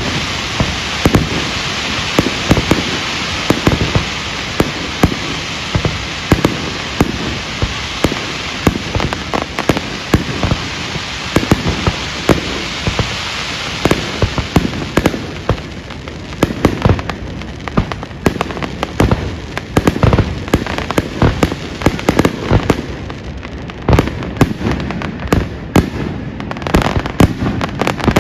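Fireworks show: shells bursting in quick, irregular succession, many bangs a second, with a crackling hiss over them that dies away about halfway through.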